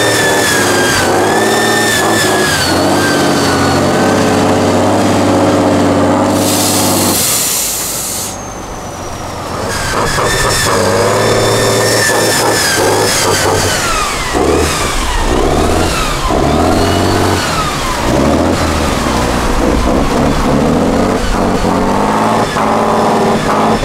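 An off-road 8x8 trial truck's diesel engine revving hard as it pushes through deep mud, its pitch rising and falling again and again under load, with a high whine that follows the revs. A short hiss comes about seven seconds in.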